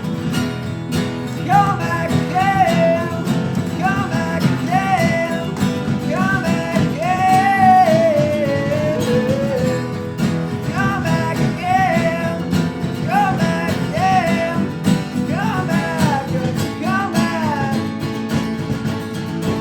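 Live acoustic band music: strummed acoustic guitars with bass and percussion, and a bending melodic lead line above them from a couple of seconds in until near the end.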